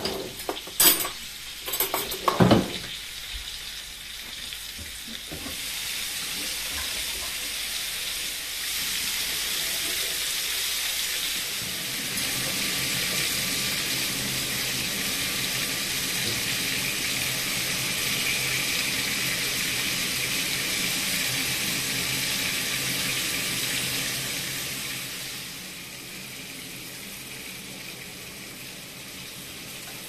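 Meat cutlets frying in oil in a pan, a steady sizzle that builds in the first few seconds and eases off near the end. A few loud knocks near the start.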